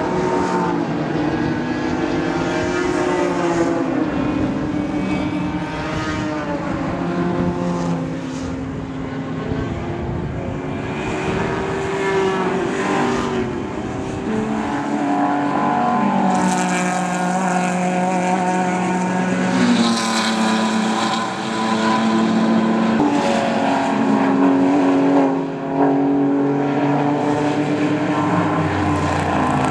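Several race cars running at racing speed on a road course, their engines overlapping, with engine notes repeatedly climbing and then dropping as they rev and shift.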